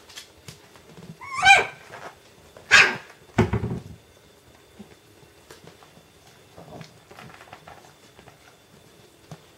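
A dog gives a high, yelping bark about a second and a half in, a second sharp bark just before three seconds, then a brief low rumbling noise. After that only faint small ticks and shuffling are heard.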